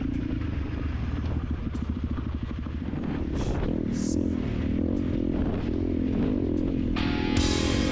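Single-cylinder dual-sport motorcycle engine running while ridden off-road, its revs rising and falling, with some clatter over the ground. Rock music comes in near the end.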